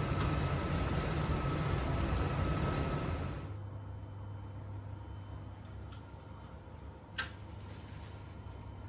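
Street ambience with traffic noise that cuts off about three and a half seconds in, giving way to a quieter background with a steady low hum. One sharp click comes near the end.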